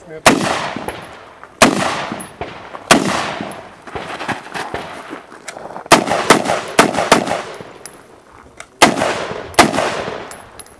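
About ten shots from an AR-15-style semi-automatic rifle, some fired singly and some in a quick run of four or five. Each shot is followed by a long echo that dies away over about a second.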